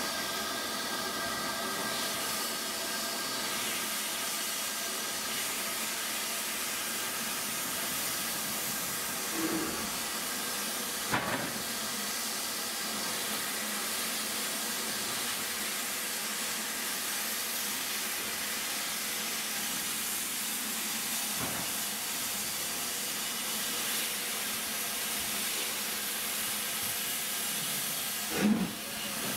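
Steady hiss of escaping steam from an LMS 'Black 5' steam locomotive, with a sharp knock about eleven seconds in and another near the end.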